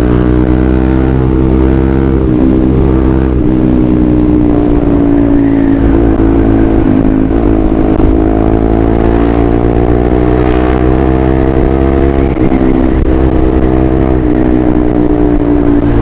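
Bajaj Rouser NS200's single-cylinder engine running through an aftermarket Villain muffler as the motorcycle is ridden. The exhaust note is steady, sagging slightly in pitch over the first few seconds, with a brief dip about twelve seconds in.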